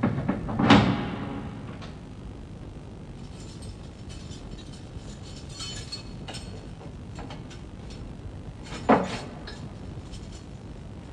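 A heavy prison cell door and its lock worked by hand: a loud metallic clank that rings on briefly about a second in, then quieter rattles and clicks, and another sharp knock near the end.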